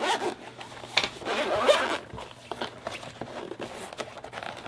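Zipper on a hard-shell gimbal carrying case being pulled open around the case in several strokes, the longest and loudest from about one to two seconds in, followed by quieter handling of the case.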